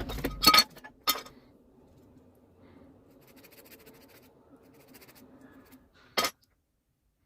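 A few sharp metallic clinks and knocks, then a faint steady electrical hum from a transformer soldering gun switched on to heat the joint. A single sharp click comes about six seconds in.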